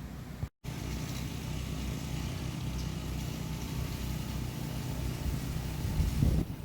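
Steady low engine-like hum with hiss, briefly cutting out about half a second in, with a louder low rumble near the end.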